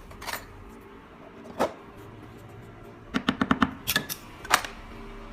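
Sharp metallic clicks and taps from handling a windproof lighter's lid and hinge: a few single clicks, then a quick run of about six taps about three seconds in, followed by three more.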